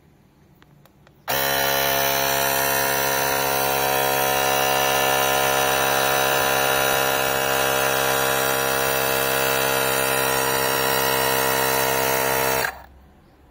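Small battery-powered portable air compressor (tyre inflator) running while pumping up a bicycle tyre through its hose: a loud, steady buzzing hum at a constant pitch that starts about a second in and cuts off suddenly near the end.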